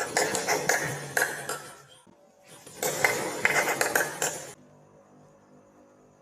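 Metallic clattering and clinking in two loud spells of about two seconds each, then a faint steady background of music.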